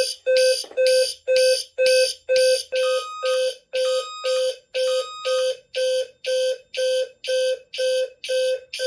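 Intelligent fire alarm sounder bases, a low-frequency base and a standard one, sounding together in march time, about two short beeps a second. They are set off by a photoelectric smoke detector put into alarm with test smoke.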